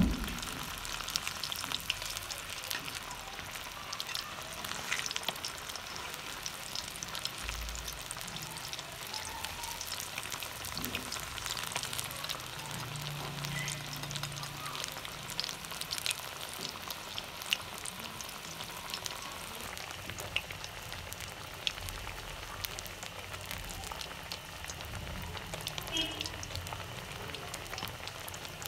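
Spice-coated fish pieces deep-frying in hot oil in a wok: steady sizzling with many small crackling pops.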